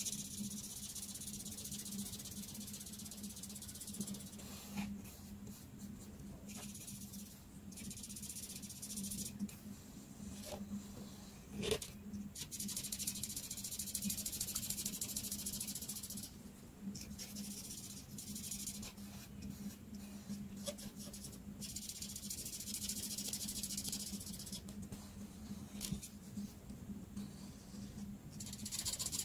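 Art marker tips stroking across paper, a soft scratchy hiss in strokes lasting from under a second to several seconds, with short pauses between. A faint steady low hum runs underneath.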